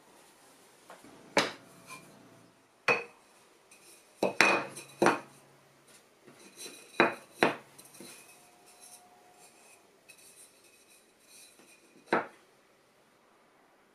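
Cut red cedar blocks set down and handled on a wooden workbench: about eight sharp wooden knocks at irregular spacing, a cluster of them near the middle.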